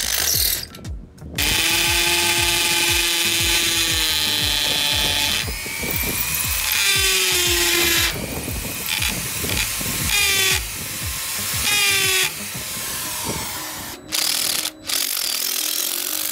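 Cordless DeWalt impact driver and a hammer drill running in bursts, driving blue Tapcon screws through a plastic post base into concrete. Their motor pitch drops and changes as the tools stop and start several times, with background music underneath.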